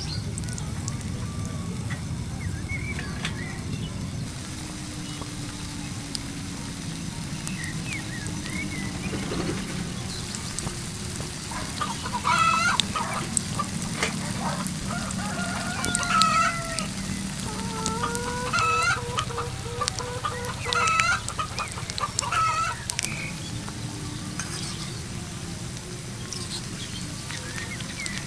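Chickens clucking and calling, with a longer crow-like call, loudest through the middle stretch, over the steady sizzle of batter fritters frying in oil in a small wok.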